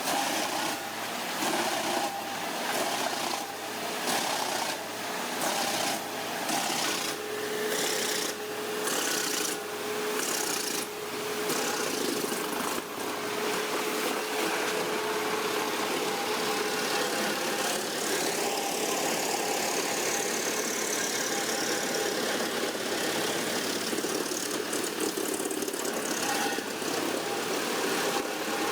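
Wood trunk crusher running on its Caterpillar 780 hp diesel engine: a dense mechanical noise that pulses about once a second for roughly the first half, then holds steady.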